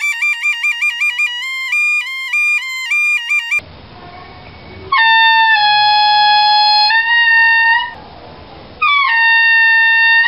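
Homemade 'loud lid' membrane pipe (a balloon stretched over a bottle lid, blown through a straw, with a sketch-pen tube as the pipe) sounding a bagpipe-like tone. It switches quickly between a couple of notes as the holes in the pen tube are opened and closed. After a short break it sounds two long held notes.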